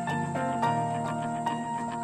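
Instrumental background music: evenly spaced picked notes over a held low chord, which changes about two-thirds of a second in.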